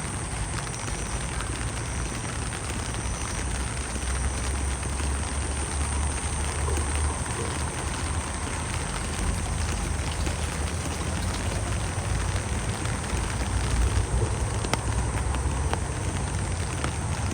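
Steady rain falling, an even hiss with a few sharp drop ticks, over a constant low rumble.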